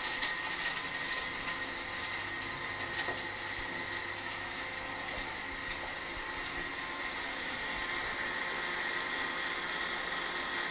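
Countertop blender running steadily, blending a pineapple and banana smoothie to a smooth liquid.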